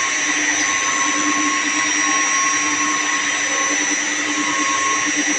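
Plant-room machinery running steadily: a continuous motor hum with several steady whining tones over it.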